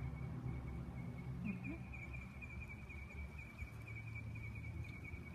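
Insect trilling steadily at a high pitch, growing louder about a second and a half in, over a low steady rumble.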